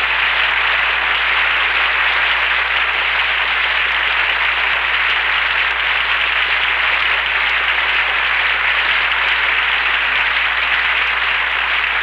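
Studio audience applauding steadily at the close of the radio play, starting to die away near the end, with a faint low hum underneath.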